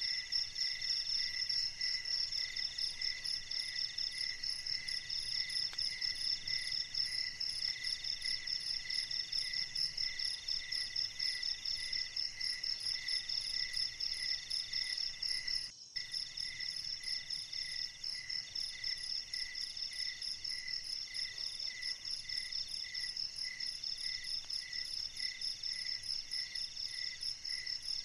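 A chorus of night insects, chiefly crickets, chirring in several steady layered tones, some of them pulsing evenly. The sound drops out for a split second a little past halfway, then carries on the same.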